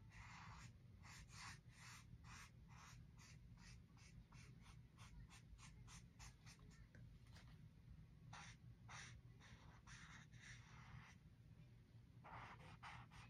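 Faint felt-tip marker strokes on sketchbook paper: quick repeated strokes about three a second for the first half, a short lull, then a few slower strokes and longer drawn-out strokes near the end.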